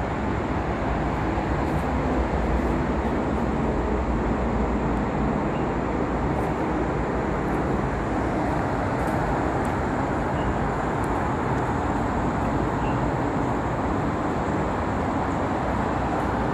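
Steady rumble of distant road traffic, an even noise with no breaks.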